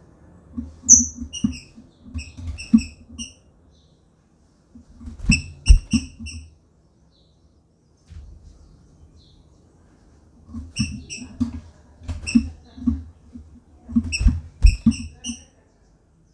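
Female green-winged saltator (trinca-ferro) giving short, high-pitched call notes in four bursts of a few notes each. Under the calls are low thumps and rustling as she moves about on the wooden perches of her cage.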